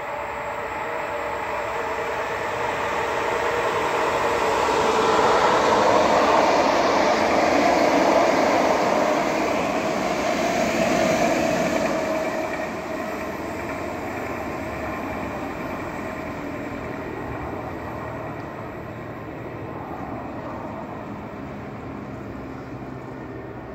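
Renfe Class 446 electric commuter train passing at speed. Its noise grows over the first few seconds, is loudest from about five to twelve seconds in, then falls away as it moves off.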